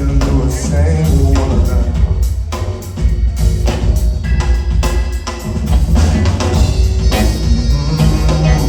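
Rock band playing live in an instrumental stretch of a song: a drum kit beats out a groove over a strong bass line, with no singing.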